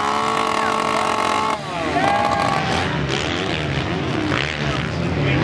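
Crowd cheering and shouting. About one and a half seconds in the sound changes abruptly to motocross bikes racing on the track, their engines revving up and down over the crowd.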